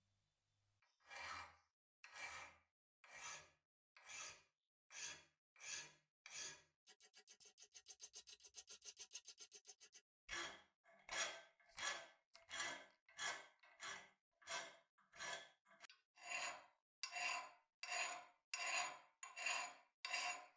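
A round file rasping along the cast-metal body of an old meat grinder clamped in a vise. Slow separate strokes come about once a second, then a few seconds of quick short strokes about seven a second, then steady strokes again a little faster than at first.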